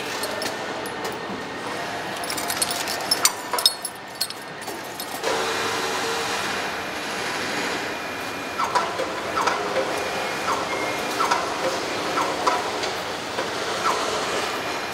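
Truck assembly line noise: first scattered clicks and knocks of tools on metal, then, after an abrupt change about five seconds in, a steady machinery hum with short rising squeaks repeating every second or so.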